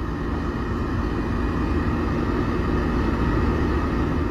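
Steady, loud low rumble, like a vehicle running.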